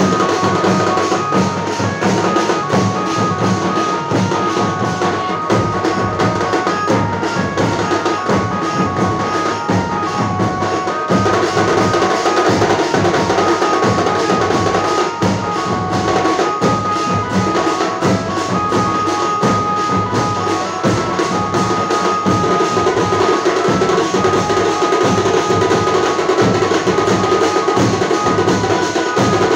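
A band of large, stick-beaten drums plays a loud, steady beat. A high melody of short, stepped notes runs over the top.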